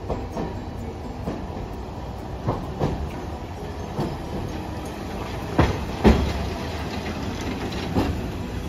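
Hiroshima Electric Railway 1900-series streetcar rolling past, its wheels clacking over the track with a string of knocks, the two loudest about five and a half and six seconds in.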